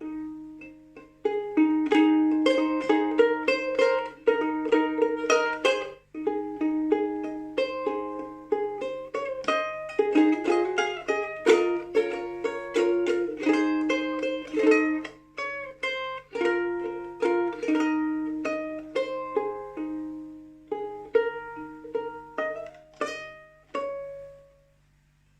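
Solo ukulele improvisation: plucked single notes and short runs with brief pauses. It ends on a ringing note that fades out about a second before the end.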